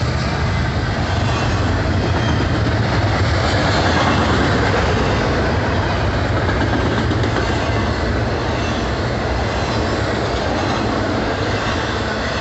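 Freight train's double-stack container well cars rolling past at close range: a steady, loud rumble and rattle of steel wheels on the rails.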